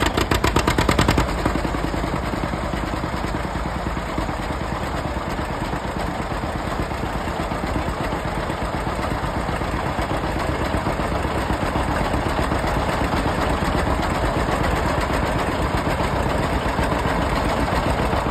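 Two-cylinder John Deere tractor engines running: the John Deere 730 diesel, cold and just belt-started, with the John Deere B still turning the flat drive belt. A pulsing beat in the first second settles into a steady run.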